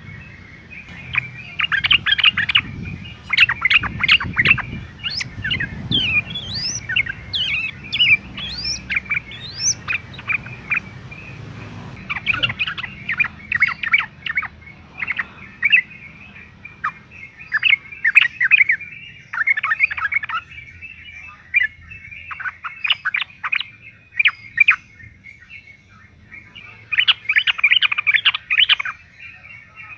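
Yellow-vented bulbul singing in repeated bouts of quick, bubbly chirping notes. A few thin rising whistles come in the first third.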